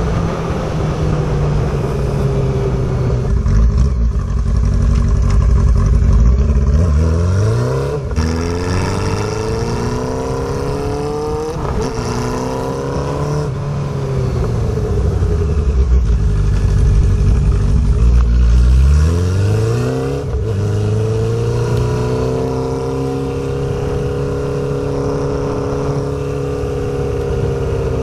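Honda CB400 Super Four's inline-four engine heard from the rider's seat while riding, the revs climbing and dropping back at each upshift through the first half. The revs then fall away, climb sharply again and hold fairly steady near the end.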